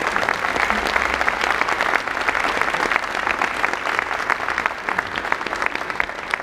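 Audience applauding: a dense, steady run of many hand claps.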